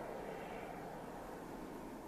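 Distant aircraft engine noise: a steady, even rumble that slowly fades.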